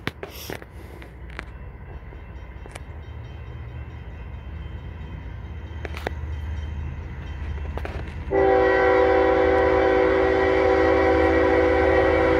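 An approaching diesel freight locomotive's low rumble grows steadily louder. About eight seconds in, its multi-chime air horn starts: a loud, steady chord held as one long blast as the train nears the grade crossing.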